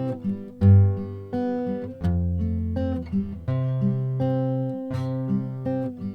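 Instrumental break in a song: acoustic guitar picking and strumming chords, with low notes changing under them.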